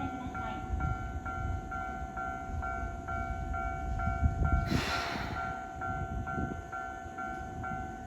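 Japanese level-crossing alarm ringing in a steady repeating two-tone ding, about two and a half strikes a second, over the low rumble of a Keisei 3000 series electric train passing the crossing. A brief hiss about five seconds in.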